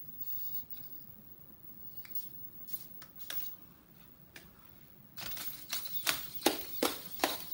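Small servo-driven plastic quadruped robot's feet tapping on a hard tile floor as it walks: a couple of light clicks as it is set down, then, about five seconds in, a steady run of sharp taps, two or three a second.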